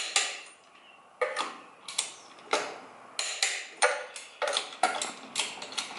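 Torque wrench clicking on a truck wheel's lug nuts as they are torqued down: a string of sharp metallic clicks, irregularly spaced, a few a second, coming faster in the second half.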